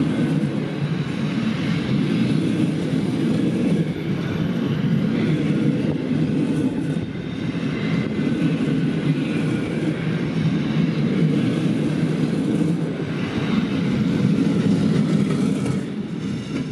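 Passenger coaches of an Intercity train passing at speed: a steady, dense rumble of wheels running on the rails.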